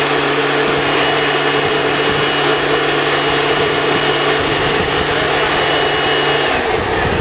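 Motorized date-palm pollinator blowing pollen through a long tube into the palm's flower clusters: a steady motor hum with a rush of air, cutting off about six and a half seconds in.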